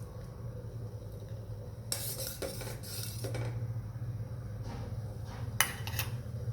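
A metal spoon stirring simmering herbal tea in a saucepan, scraping and clinking against the pan now and then, with a louder pair of clinks near the end. A steady low hum runs underneath.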